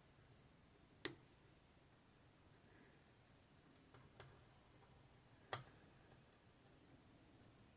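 Lock pick working the pins inside an Ikon N1 lock cylinder during single-pin picking: small sharp clicks, a clear one about a second in and another about five and a half seconds in, with a few fainter ticks around four seconds.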